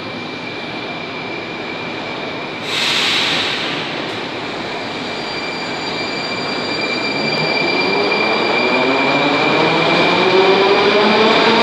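Moscow Metro 81-740.1/741.1 'Rusich' articulated train pulling out of a station, its wheels rumbling on the rails. About three seconds in there is a short loud hiss of air. From about seven seconds in, the traction motors' whine rises in pitch in several stacked tones as the train accelerates.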